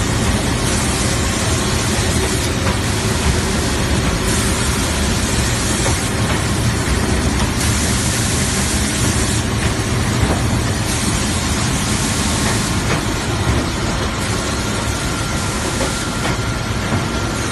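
Heavy-duty wide belt sanding and polishing machine running, a loud steady mechanical rush of noise. Twice a brighter hiss rises over it for a second or two.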